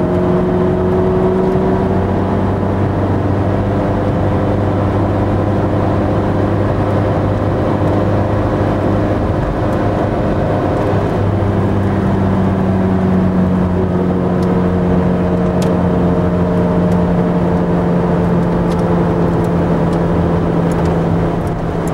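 Ferrari F430's V8 engine heard from inside the cabin, running at a fairly steady pitch with road and tyre noise underneath. The engine note shifts to a different pitch about halfway through.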